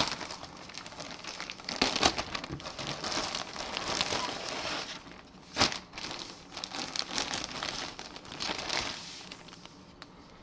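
Clear plastic bag crinkling and crackling as a folded baseball jersey is pulled out and handled, with one sharper snap about halfway through. The rustling dies away near the end.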